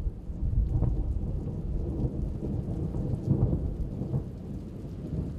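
Thunder from a supercell thunderstorm: a low, uneven rumble with no sharp crack.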